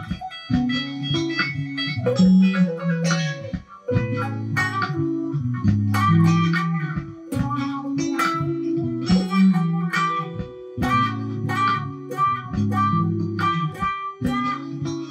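Electric guitar, a custom Jack Daniel's-themed tribute build, played through an amp in a soul style: a continuous run of picked notes and chord phrases.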